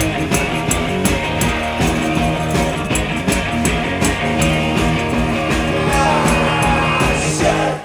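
Rock band playing live and loud, with electric guitars over a steady drumbeat. The song stops abruptly at the very end.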